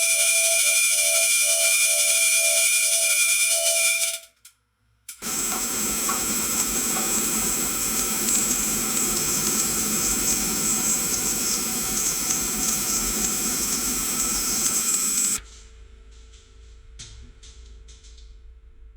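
Bathtub water draining through the pipes: a loud, steady rush of water for about ten seconds that drops suddenly to a faint trickle with a few small clicks and a low steady hum. Before it comes a few seconds of bright hissing with high tones, then a second of silence.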